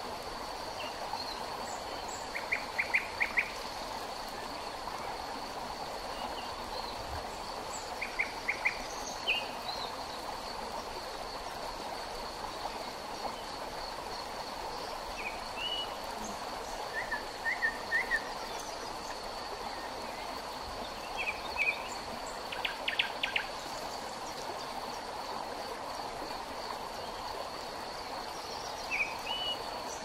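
Forest river water flowing steadily, with small birds chirping in short phrases every few seconds over a steady high-pitched insect whine.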